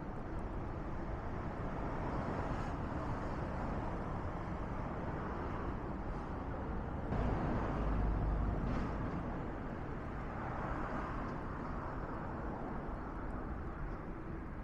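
Straw burning in a smokeless carbonizer: a steady rushing fire noise with a few faint crackles, swelling louder for about two seconds midway.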